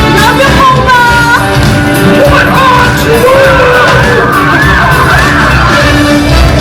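Loud stage-show music with singing and yelled calls from the performers.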